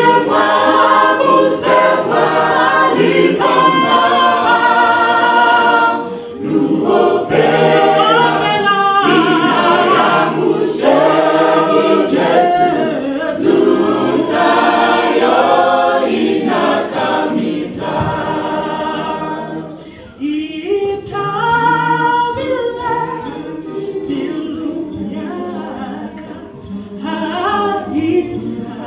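A gospel choir singing a cappella, without instruments, with a woman leading through a microphone over the choir's voices. The singing drops briefly about two-thirds of the way through, then goes on more softly.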